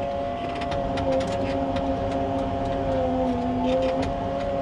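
Engine of a tracked machine running steadily as it climbs a slippery dirt slope: an even drone whose pitch wavers slightly.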